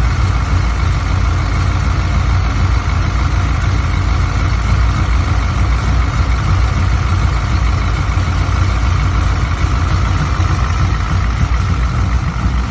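Vehicle engine idling steadily with a constant high whine over the low rumble: the weird noise that appeared after a new alternator was installed.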